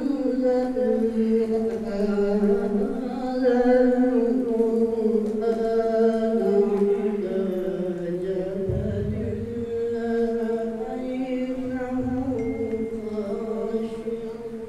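A man reciting the Quran in the melodic, drawn-out tajweed style into a handheld microphone. It is one long phrase whose pitch winds slowly up and down, and it ends right at the close.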